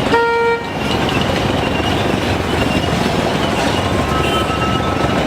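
Dense street traffic noise with a single short vehicle horn toot, about half a second long, just after the start.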